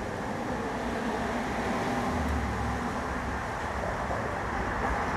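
Steady road noise with a low rumble, as heard inside a moving vehicle.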